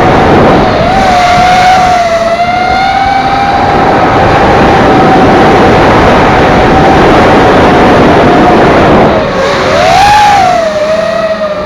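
FPV racing quadcopter's motors and propellers whining, the pitch dipping and rising with throttle about a second in and again near the end, over a loud steady hiss.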